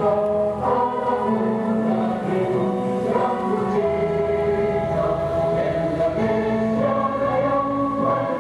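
A choir singing a slow song in long held notes, many voices together, without a break.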